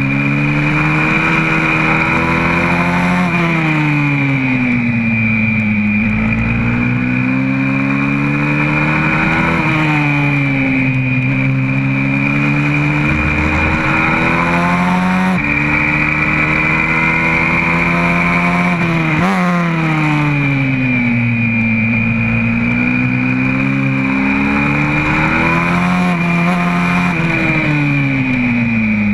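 YCF 125cc four-stroke pit bike engine under hard riding, its pitch climbing and dropping again every several seconds as the throttle opens and closes, with sudden steps at gear changes.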